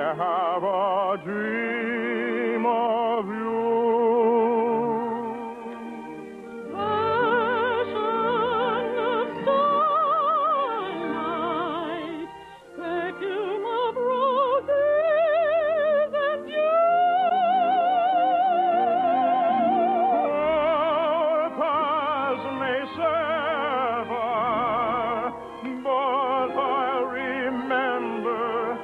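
Operetta singing with wide vibrato, long held notes and sweeping phrases over an orchestral accompaniment. The sound is dull and narrow-band, like an old radio broadcast recording.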